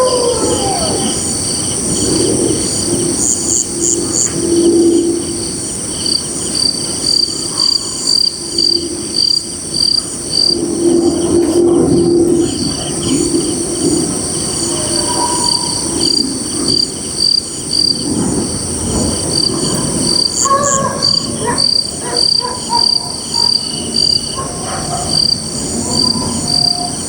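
Night insect chorus: crickets chirping in even pulses over a steady high trill. Scattered lower calls run underneath, with a short falling call right at the start.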